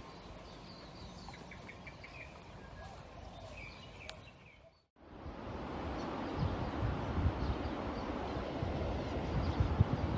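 Quiet outdoor ambience with small birds chirping, including a quick run of chirps. After a brief break about five seconds in, it gives way to louder, gusty wind buffeting the microphone.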